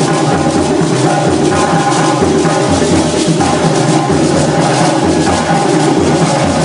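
Music with a steady drum beat and percussion.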